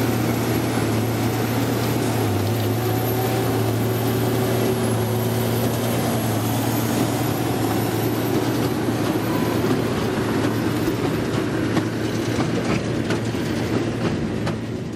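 Case IH Puma 180 tractor engine running steadily as it pulls a New Holland BB9070 large square baler past, with the baler's machinery rattling and clicking. The sound fades a little near the end as the rig moves off.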